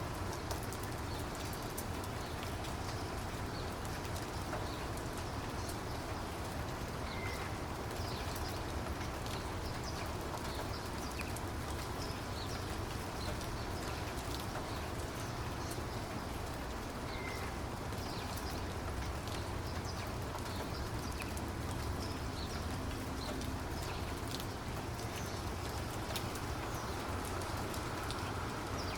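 Steady rainfall: an even hiss with many individual raindrops ticking.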